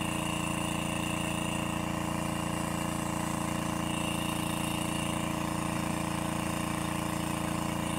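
Motor-driven water pump running steadily, a constant hum with a thin high whine over it, as it draws the pond's water down.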